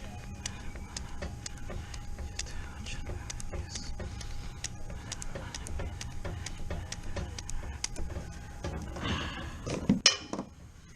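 Manual grease gun being pumped into a bearing's grease fitting: short clicks about twice a second, over a low rumble. Near the end comes a louder clatter and one sharp knock.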